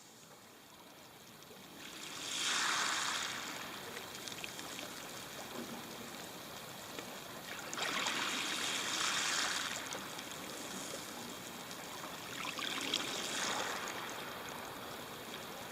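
Waves washing up a pebble beach and draining back: a steady hiss of surf with three louder surges, about five seconds apart.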